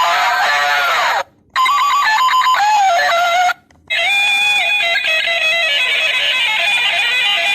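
Electronic baby-toy tones: three short synthesized jingles with brief gaps between them. The first ends in a falling glide, the second steps through a few pitches, and the third is a fast, high, warbling melody.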